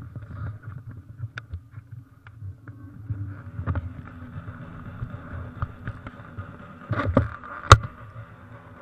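Ducati motorcycle engines running with an uneven, pulsing low rumble. A sharp loud pop comes about three-quarters of the way through.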